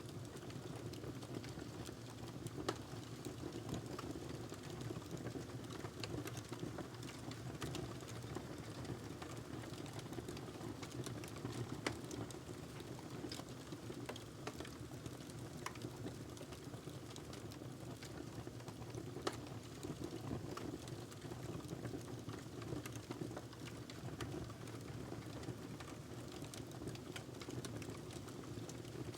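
Wood fire in a fireplace crackling: irregular sharp pops and ticks over a steady low rumble of the flames, with a louder pop about three seconds in and another about twelve seconds in.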